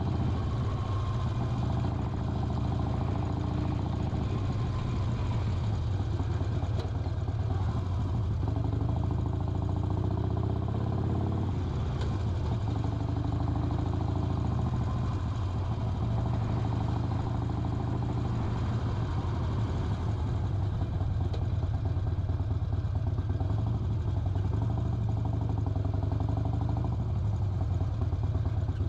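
Harley-Davidson Sportster XL 1200 Custom's air-cooled V-twin engine running, a steady low drone whose pitch rises and falls a little as the revs change.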